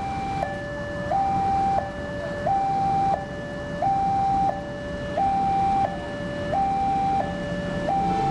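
Electronic warning alarm of a railway level crossing, a steady two-tone signal alternating between a higher and a lower pitch about every two-thirds of a second, the higher tone louder. It sounds while the barrier is down, warning that a train is approaching.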